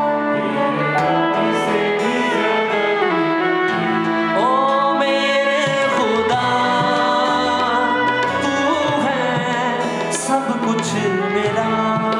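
Live worship song with a voice singing a melody over the band's sustained accompaniment.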